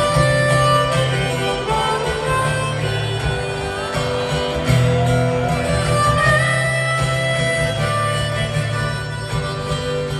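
Live concert music: acoustic guitar strumming under sustained harmonica-like melody notes, recorded from the audience.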